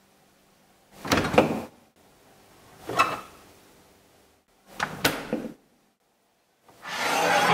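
A refrigerator door pulled open with a clunk, then two short knocks and clinks as items are taken from the door rack and shelf. Near the end comes a longer rising scrape of a frying pan drawn across a wooden shelf.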